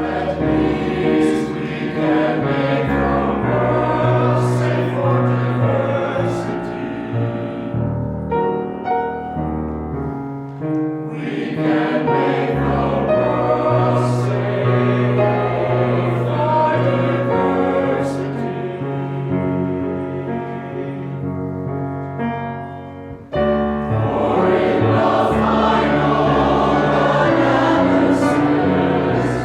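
A choir singing over a sustained low bass accompaniment. The music dips briefly about two-thirds of the way in, then comes back fuller and louder.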